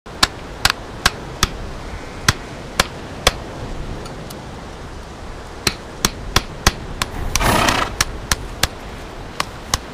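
Hammer striking in sharp taps at a horse's hoof, as when nailing on a shoe, in short runs of about two to three strikes a second. A brief rush of noise comes about seven and a half seconds in.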